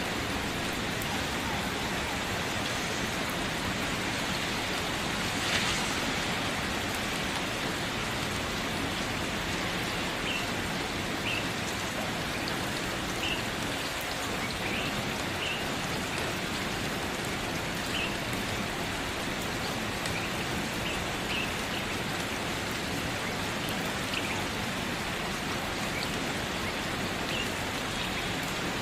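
Steady rain falling, an even hiss of many drops, with a single louder tap about five and a half seconds in.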